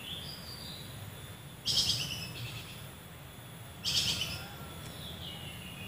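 Bird song: two short bright bursts of chirping about two seconds apart, with thin falling whistles in between.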